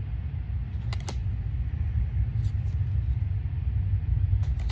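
Steady low rumble, with a few short sharp clicks: a pair about a second in and more near the end.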